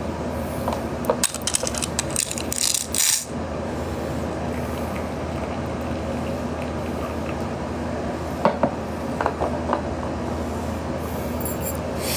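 Steady low background hum, with bursts of short clicks and rattles from the phone being handled close to the microphone, about a second in and again near the middle.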